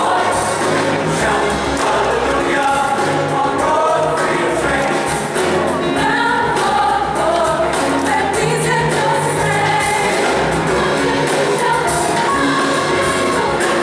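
A large youth choir singing, many voices together in several parts.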